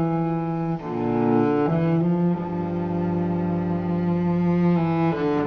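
Slow background music of long held notes on a low bowed string instrument, changing pitch every second or so.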